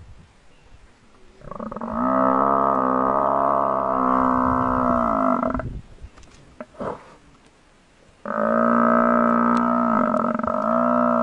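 African buffalo cow, held down by lions, bellowing in distress: two long, steady bellows, the first from about a second and a half in, the second starting about eight seconds in.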